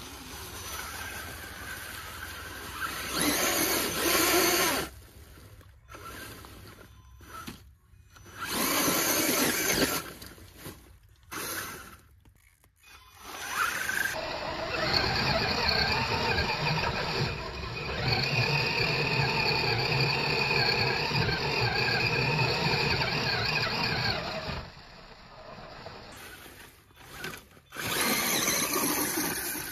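Radio-controlled Axial Wraith crawler's electric motor and gears whining as it drives over dry leaves and snow, in spurts: several short bursts, then a long run of about ten seconds in the middle, and another short burst near the end.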